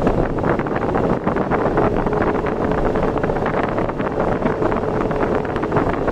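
Vehicle travelling at highway speed, its running noise under a heavy rush of wind buffeting the microphone. A faint steady hum comes in about a second and a half in.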